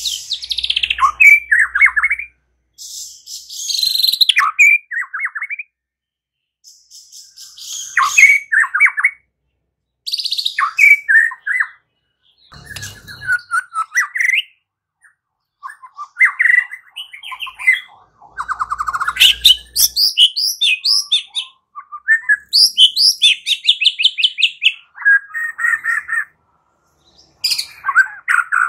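White-rumped shama singing: loud, varied phrases of clear whistles, trills and rapid chattering notes, delivered in bouts separated by short pauses.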